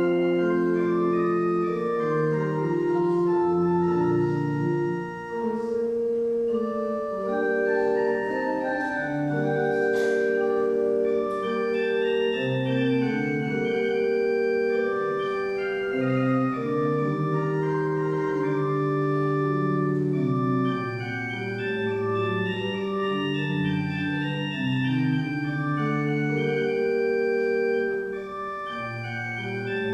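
Church organ playing a slow piece in sustained chords, with the bass notes moving under held upper notes.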